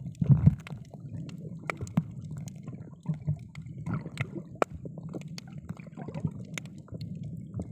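Underwater ambience picked up by a submerged camera: a low, muffled water rumble with many scattered sharp clicks and crackles.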